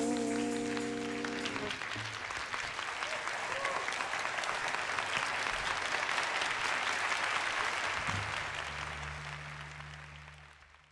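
A live blues band's final chord rings out and dies away in the first two seconds, then audience applause that fades out near the end. A low hum comes in about eight seconds in.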